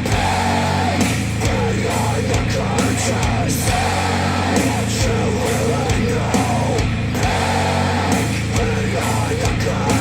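Heavy, guitar-driven rock music with a steady drumbeat, played through Wharfedale Denton 80th bookshelf speakers driven by a Sony STR-DG500 receiver.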